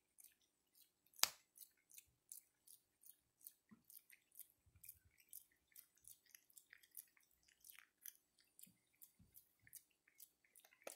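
Faint, quick clicks and smacks, several a second, as a Java macaque grooms a person's hair, with one louder click about a second in.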